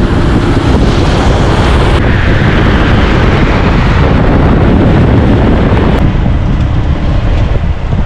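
Loud wind buffeting on the microphone of a camera riding along on a moving road bike, a dense low rumble. Its character changes abruptly about two seconds and six seconds in.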